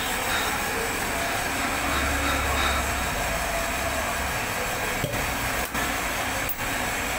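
Steady hiss and hum of cylinder-head workshop machinery, with a low hum swelling about two seconds in. The sound dips briefly three times near the end.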